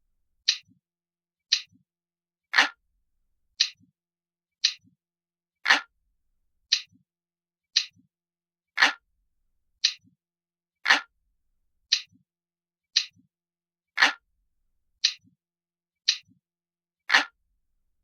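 Ticking clock sound, one sharp tick about every second, steady and even; every third tick or so is deeper and fuller than the others.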